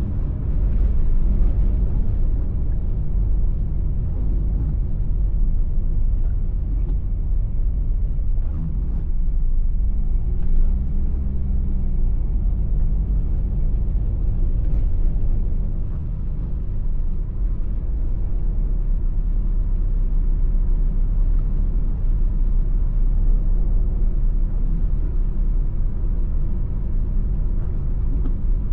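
Steady low engine and road rumble heard from inside a moving car's cabin, with a brief rise and fall in engine pitch about ten seconds in.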